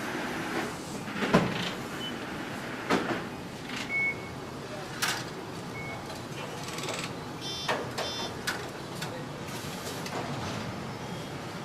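Car assembly-line noise: a steady machinery din with several sharp metal clanks and knocks, the first and loudest about a second in, and two short high electronic beeps around the middle.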